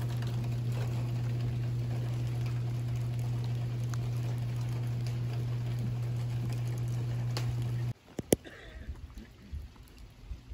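Steady rain pattering, with scattered sharp drips, over a loud, steady low hum. Near 8 s the sound cuts to quieter rain with a single sharp tap.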